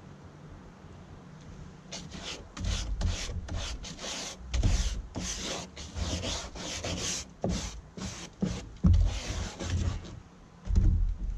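A stiff kitchen brush scrubbing a boat seat's stained plastic upholstery, working a Bar Keepers Friend and bleach paste into the pores. It makes quick, hissy back-and-forth strokes, about two or three a second, starting about two seconds in.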